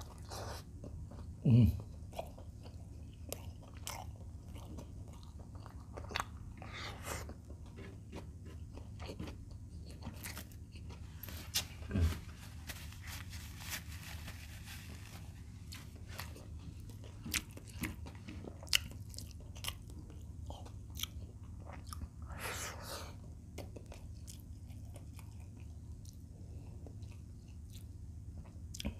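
Close-up eating sounds: a person biting and chewing fried chicken breast with rice, with many short wet mouth clicks and smacks. Two louder low thumps come about 1.5 s and 12 s in, and a soft papery rustle from a tissue wiped across the face comes near the middle.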